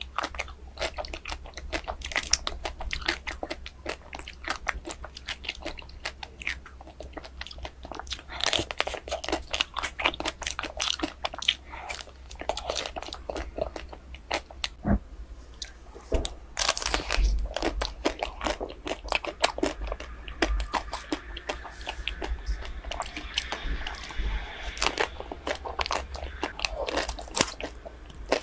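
Close-miked eating of ice cream: dense, irregular crunching as it is bitten and chewed, thinning briefly about halfway through.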